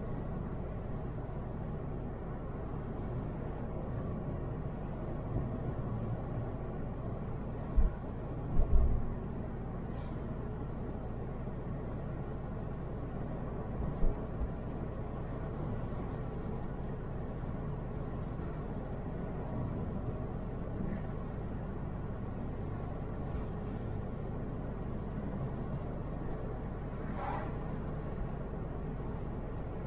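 2002 Toyota RAV4 driving at a steady speed, a steady rumble of road and engine noise. A few short low thumps stand out, twice around eight seconds in and once around fourteen; the owner puts such clunks down to worn struts that need changing.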